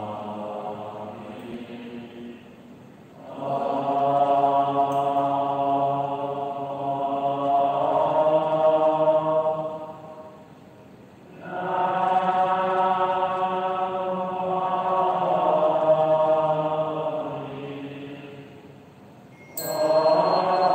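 Slow Buddhist liturgical chanting in long drawn-out notes, sung in phrases with short pauses about 2.5 s and 10.5 s in. Near the end, a sharp ringing strike marks the start of a new phrase.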